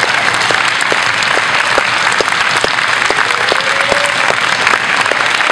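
Spectators applauding in a large hall. One close clapper stands out at a steady rhythm of about two claps a second.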